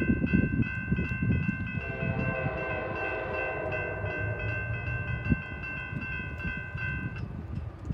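Railroad grade crossing bell ringing with rapid, even strikes while the crossing gates lower, stopping about seven seconds in. From about two seconds in, a distant diesel locomotive horn sounds under the bell for several seconds as the train approaches. Wind buffets the microphone with a low rumble.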